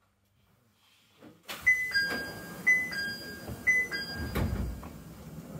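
Door chime of the Hakone Tozan cable car stopping at a station: a high-then-low two-note chime sounding three times, about a second apart. Under it, the clatter of the doors sliding open, with a thump near the end.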